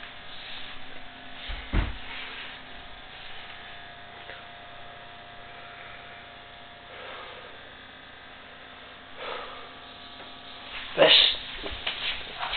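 Steady electrical buzzing hum, with a low thump about two seconds in and a loud sudden noise about eleven seconds in.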